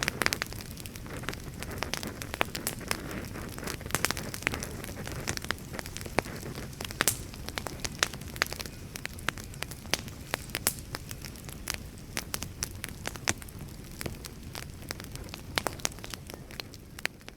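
Wood fire crackling: a steady low rush of burning with frequent sharp pops and snaps from the firewood, fading slightly near the end.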